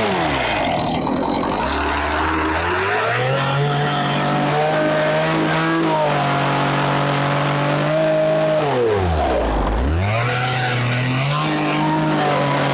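Chainsaw engine running. It falls to a low idle in the first second or two, revs up about three seconds in and holds at a steady high speed while carving wood. It drops briefly to idle around nine seconds in, then revs up again.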